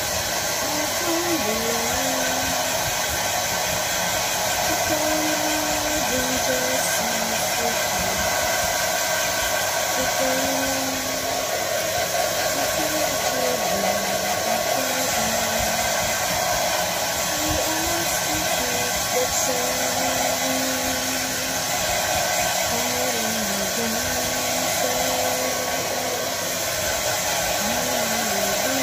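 Handheld hair dryer blowing steadily, drying a small dog's fur.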